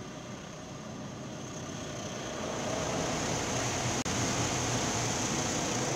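Automatic car wash spraying water onto the car, heard from inside the cabin: a steady rushing hiss with a low machinery hum, growing louder over the first three seconds and then holding steady.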